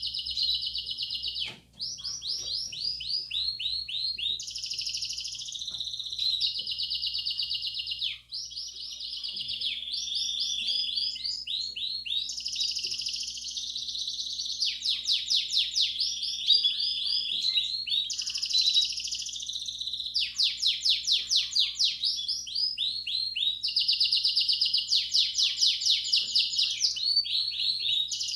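Belgian canary singing campainha-style song: one unbroken run of fast rattling trills and rolls, each tour changing pitch and speed every second or two, with brief breaks about one and a half and eight seconds in. A faint steady hum lies underneath.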